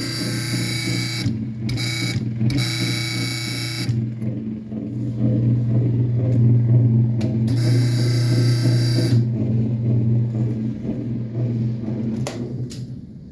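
Top-loading washing machine running on high-speed agitation with a loud buzz: a steady low hum, with a harsh, higher buzzing that cuts in and out several times. The buzz is a fault that appears only on the high-speed agitation setting. The hum stops near the end with a couple of clicks.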